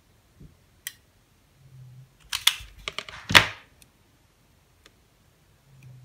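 Handling noise: a few clicks and clacks as a hot glue gun and the small plastic parts of a USB cable plug are worked by hand on a wooden desk, with a cluster of them about two and a half to three and a half seconds in, the loudest a clack near the end of that cluster.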